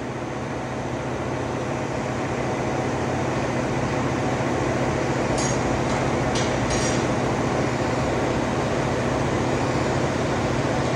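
Automatic flap-wheel wood sanding machine running: a steady motor hum and whir from the spinning sanding wheel, growing a little louder over the first few seconds. About halfway through come three brief high clinks.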